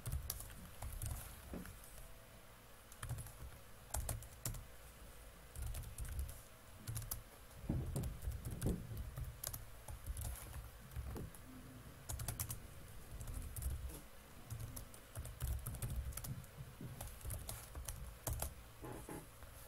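Typing on a computer keyboard: irregular keystrokes, some in short quick runs, with pauses between.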